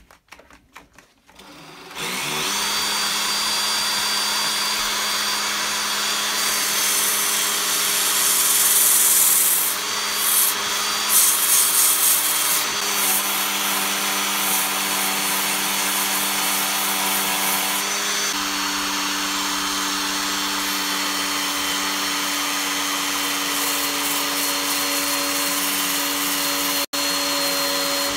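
A cordless drill clamped in a vise starts up about two seconds in and runs steadily, spinning a wooden screwdriver handle like a lathe while sandpaper is held against it. The scratchy hiss of the sandpaper on the wood is loudest in the first half, and the motor's pitch changes a couple of times; it breaks off for a moment near the end.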